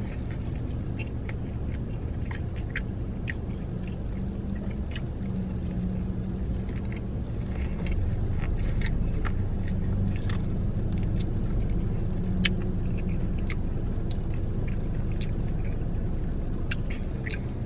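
Close-up eating of Cajun-seasoned corn on the cob: scattered crunchy bites and wet mouth clicks, getting louder about halfway through, over a steady low rumble.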